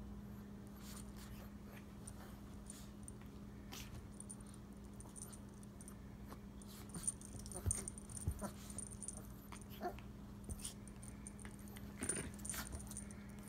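Two dogs play-mouthing: quiet nibbling and snuffling with soft dog noises and scattered small clicks, busier in the second half, over a steady low hum.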